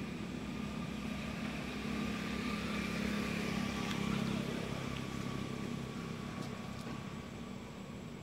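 A motor engine running steadily, swelling a little in the middle and then easing off.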